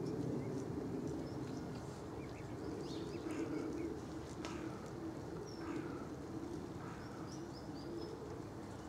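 Small birds chirping now and then over a steady low drone.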